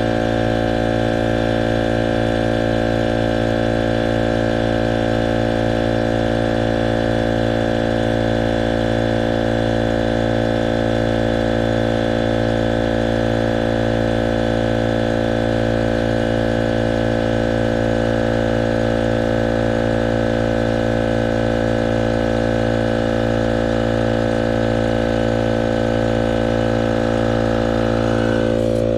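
Portable tire inflator's small air compressor running steadily at a constant pitch, pumping air through a hose into a tire.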